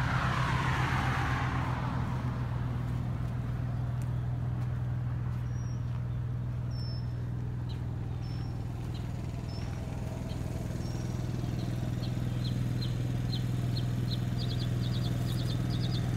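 Steady low hum of an engine running at a constant speed. A vehicle passes and fades away in the first two seconds, and a bird chirps in a quick run of short notes near the end.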